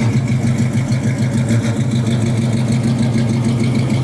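A vehicle engine idling steadily at a constant low pitch, with a fast even pulse.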